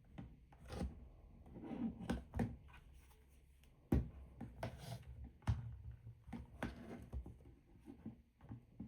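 Handling noise: irregular taps, knocks and rustles of objects being moved about, with a sharp knock about four seconds in and another about a second and a half later.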